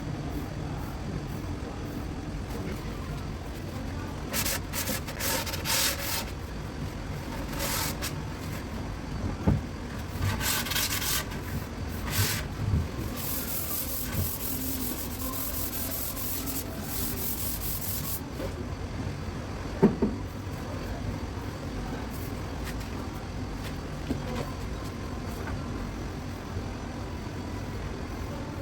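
Sanding a wood surface by hand in several passes, the longest lasting about five seconds, over a steady low rumble, with a couple of short knocks.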